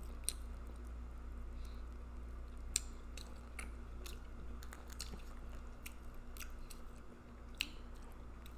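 Close-miked chewing and lip smacking over a mouthful of seafood boil: wet clicks and smacks, the sharpest about a quarter second in, near three seconds and past seven and a half seconds, over a low steady hum.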